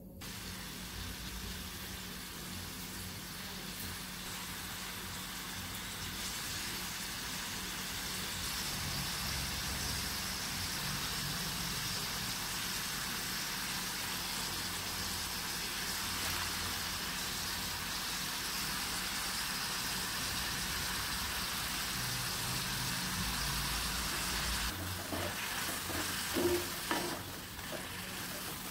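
Chopped tomatoes frying in hot oil in a kadai, a steady sizzle that grows a little louder after several seconds. Near the end a spatula stirs and knocks against the pan a few times.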